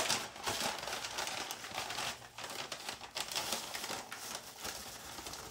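Brown paper bag rustling and crinkling as it is shaken with fish fillets and breading inside, in quick irregular crackles that are loudest in the first second and ease off toward the end as the bag is opened.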